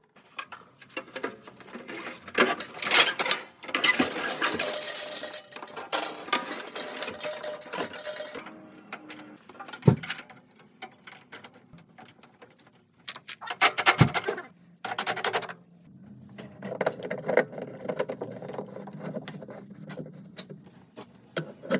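Plumbing work noises: tools and metal parts handled, with scraping and rattling, clicks and two sharp knocks about ten and fourteen seconds in.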